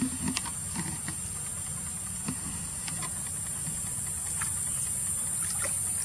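A macaque wading through shallow muddy water, with faint scattered splashes and ticks over a steady high hiss and a low rumble.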